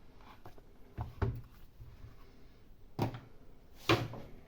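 Light knocks and clicks of a tablet being handled and set down on a work surface: a pair about a second in, one at three seconds, and the loudest near four seconds.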